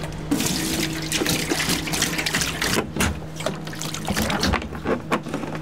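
Water pouring and trickling from a plastic canister into a plastic tub.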